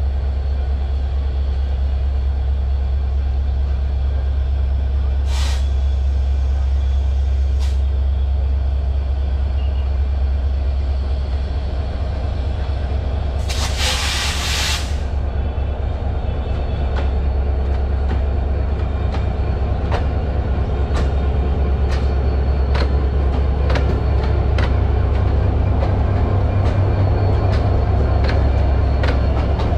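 EMD GT42 diesel-electric locomotive drawing a passenger train out of the station toward the listener, its engine a steady low rumble. About halfway through there is a brief loud hiss of air. After that, wheel clicks over the rail joints come faster and louder as the locomotive draws near.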